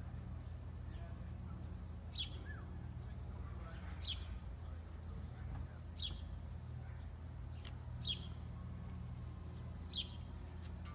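A bird giving a single sharp, high chirp five times, about every two seconds, over a steady low hum.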